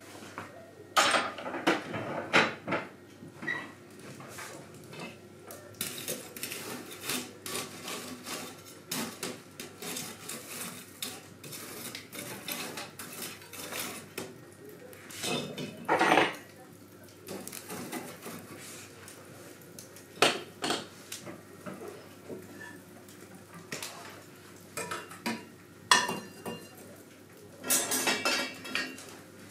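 Metal clanks, clinks and scrapes as a metal pan is set down and shifted on the coals inside a cast-iron wood stove, with the stove door being handled. Several loud clanks stand out, a cluster soon after the start, more around the middle and toward the end, with lighter clinks in between.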